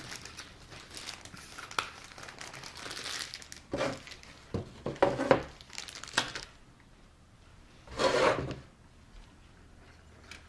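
Plastic parts bags crinkling and rustling as they are handled, in irregular bursts, loudest about halfway through and again a few seconds later.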